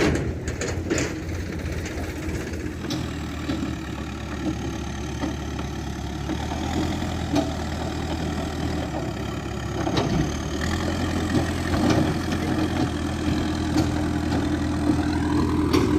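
Diesel engine of heavy machinery running steadily at low revs, with a few sharp knocks in the first second and one more near the end.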